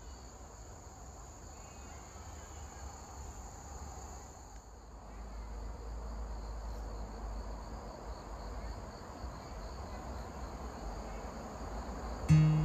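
A steady, high-pitched chorus of insects chirping, with a low rumble underneath. Acoustic guitar music starts just before the end.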